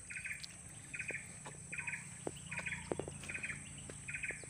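A short chirping call of three or four quick pulses, repeating about once a second, over soft clicks and rustles of hands rubbing mud off a pulled-up rice plant's roots.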